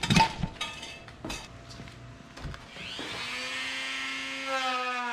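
A few handling clicks and knocks, then a Dremel rotary tool switches on about three seconds in, its whine rising quickly and then running steady and high-pitched.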